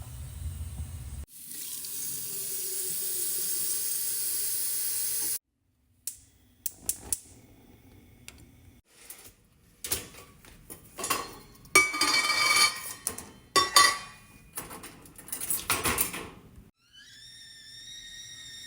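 Water runs from a tap into a tea kettle for about four seconds. Then come clicks and the clatter and ring of dishes being unloaded from a dishwasher. Near the end the stovetop kettle starts to whistle at the boil, rising and then holding steady with several tones.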